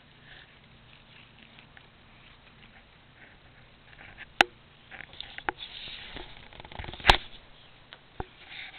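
Rustling and scuffling of a cat tussling with a string toy on carpet, with a few sharp clicks or knocks, the loudest about seven seconds in.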